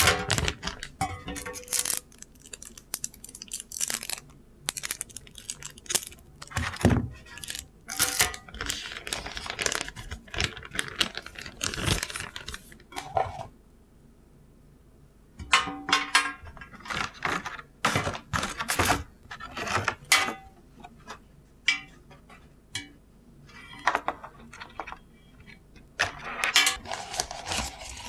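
Handling noise from unboxing a gaming mouse: irregular clicks, taps and rustles of the packaging and mouse being handled, with a short pause about halfway through.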